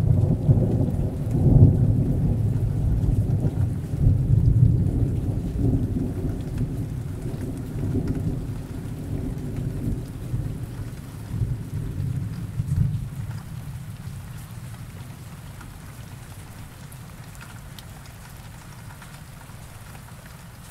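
Steady rain with a long rolling rumble of thunder. The rumble is loudest right at the start, swells again a few times, and dies away about two-thirds of the way through, leaving only the hiss of the rain.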